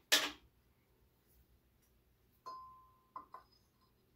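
A metal engine mount being handled against an engine block: a sharp clank right at the start, then about two and a half seconds in a clink that rings briefly on one tone, followed by two quick clicks.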